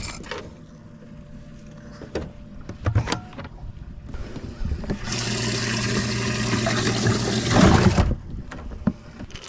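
A few hard knocks of boat hatch lids, then for about three seconds a steady rush of water over a motor hum that starts and cuts off suddenly, typical of a bass boat's livewell pump running.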